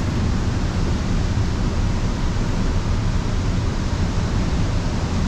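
Steady rushing noise of a flood-swollen river's fast water, with wind buffeting the microphone.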